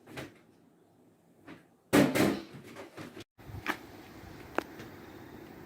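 A door being opened or shut with a knock and rattle about two seconds in. It is followed by a brief dropout, then a steady outdoor hiss with two small clicks.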